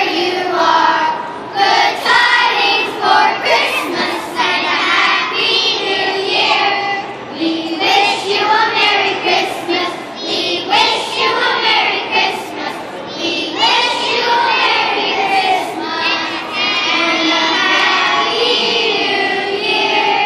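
A group of children singing a Christmas song together as a choir.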